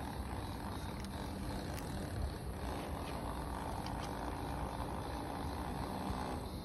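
Steady low rumble of road traffic, swelling in the second half as a vehicle passes, with a few faint clicks.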